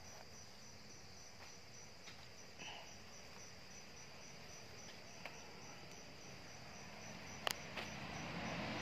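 Crickets chirping in a faint, steady high trill. A few faint clicks and taps, the sharpest about seven and a half seconds in.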